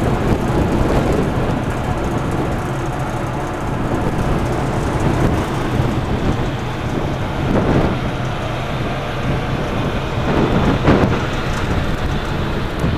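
Strong wind buffeting the microphone on a ferry's open deck, gusting harder twice, about eight and eleven seconds in, over a steady low hum from the ship.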